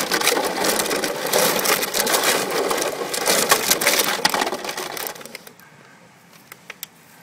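Empty plastic water bottles and a plastic jug crackling and crunching as a Belgian Malinois puppy scrambles among them and bites at the jug. The dense crackle lasts about five seconds, then drops to a few scattered clicks.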